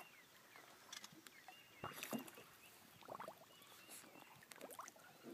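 Faint, irregular splashes and sloshing of water against a boat's hull, from an armadillo swimming alongside.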